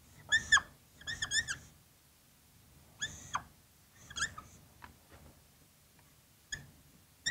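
Green dry-erase marker squeaking on a whiteboard as boxes and connecting lines are drawn: a string of short, high squeaks in separate strokes with pauses between, the longest run about a second in.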